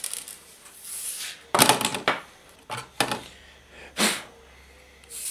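A clock radio's plastic case and its parts being handled and set down on a workbench: rustling with three sharp knocks, the loudest about a second and a half in.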